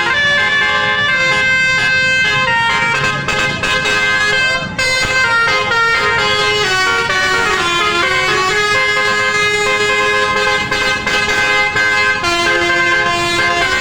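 Bus telolet horn, a multi-tone musical air horn, playing a tune: several horn tones sound together and change pitch in steps.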